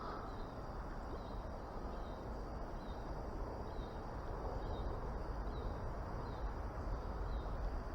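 Steady outdoor background noise, with a faint, short, high chirp repeating about once a second.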